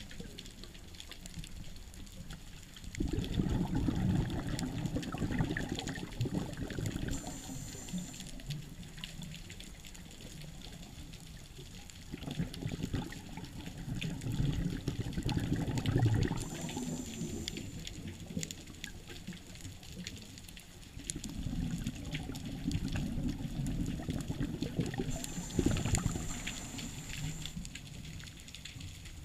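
Underwater sound of a scuba diver breathing through a regulator. Three times, a few seconds of rumbling exhaled bubbles are followed by a short high hiss as the diver breathes in.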